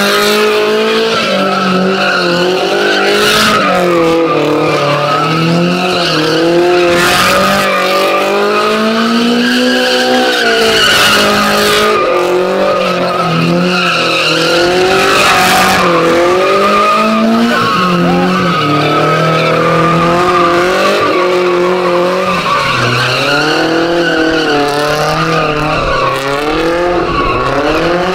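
A car doing a burnout in a pit: the engine is held at high revs, its pitch rising and falling, while the tires squeal continuously.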